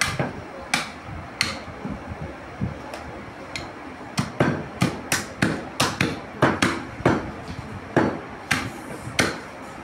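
Meat cleavers chopping through beef ribs on wooden log chopping blocks: a few scattered blows at first, then a fast run of strikes, about two or three a second, from about four seconds in.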